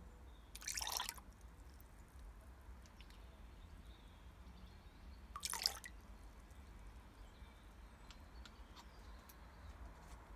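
Water in a plastic tub: two short splashy, dripping sounds about five seconds apart, with a few faint ticks of drops between.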